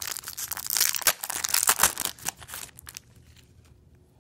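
Foil wrapper of a 1999 Donruss football card pack being torn open and crinkled by hand, a dense rustle that stops about three seconds in, followed by faint clicks of the cards being handled.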